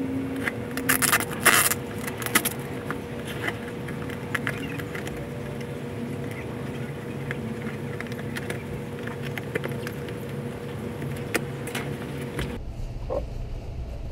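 Scissors cutting the packing tape on a cardboard shipping box, a run of sharp snips and tears in the first couple of seconds, then quieter scraping and handling of the cardboard. A steady hum with a single held tone lies underneath and changes near the end.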